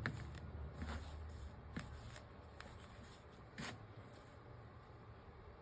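Paper and card being handled and shifted into place, a soft rustling with a few light taps and clicks, the loudest just at the start.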